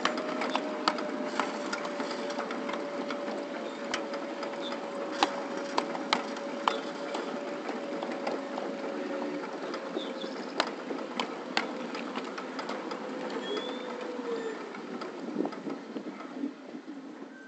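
Ride-on 7.5-inch gauge backyard railway train running on its track: a steady running noise with irregular sharp clicks of the wheels over rail joints, and a steady whine that sags slightly in pitch. Near the end the whine drops away and the running noise fades as the train slows.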